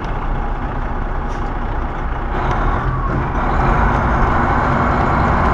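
Semi-truck engine and road noise heard inside the cab while driving, a steady drone that grows louder from about two and a half seconds in.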